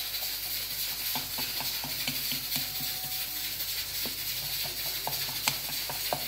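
Metal fork jabbed again and again into pizza dough in a pan, pricking holes in the base: a run of light, irregular taps and clicks over a steady hiss.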